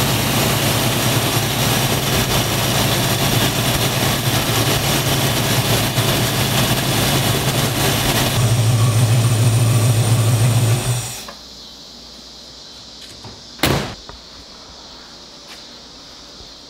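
Ford V8 in a classic Mustang idling steadily during an ignition timing check, then shutting off abruptly about 11 seconds in. A single sharp knock follows a couple of seconds later.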